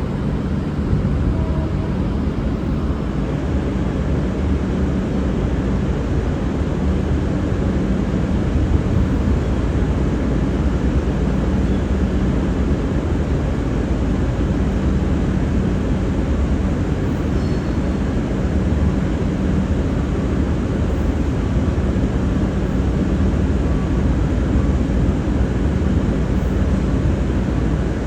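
Steady rumble of a diesel train running, a constant low drone under even noise.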